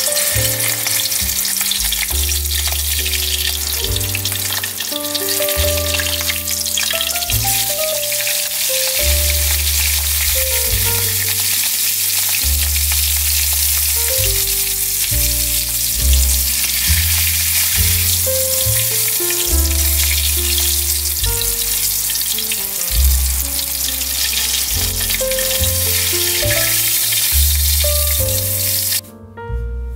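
Hot oil sizzling steadily in a wok as marinated chicken gizzards and hearts shallow-fry. The sizzle stops abruptly near the end.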